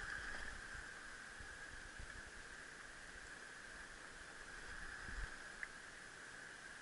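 Faint steady hiss with a few soft low thumps, and a single short click about five and a half seconds in.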